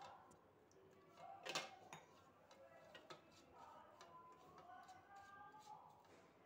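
Faint music with a few light ticks, and one sharper clink about one and a half seconds in.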